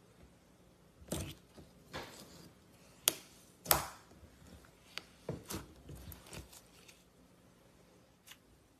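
Clear slime being squeezed and pressed by fingers, giving a scattered series of short sticky clicks and pops, the loudest a little past the middle and a last faint one near the end.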